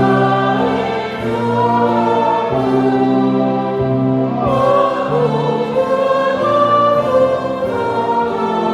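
A choir singing an Indonesian hymn in held chords over instrumental accompaniment, with the bass notes changing about once a second.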